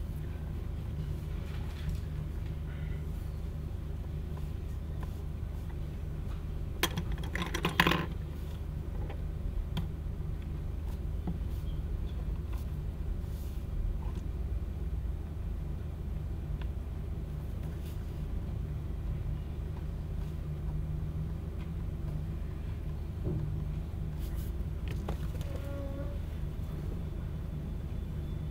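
Steady low hum of room noise, with a brief burst of rustling and clicks about seven seconds in and a few faint small clicks elsewhere.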